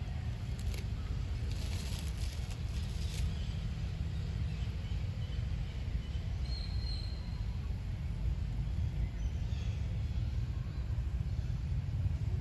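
Outdoor ambience: a steady low rumble throughout, a few faint clicks about two seconds in, and one short high bird chirp about halfway through.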